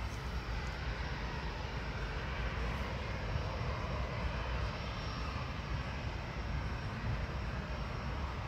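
Jet airliner engines heard at a distance across the airfield: a steady, even rumble and rush of noise.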